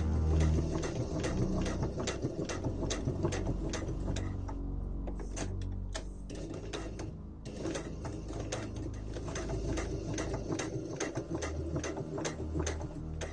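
Electric domestic sewing machine stitching leather glove pieces: a quick run of needle clicks over the motor hum, easing off briefly around the middle before it picks up again.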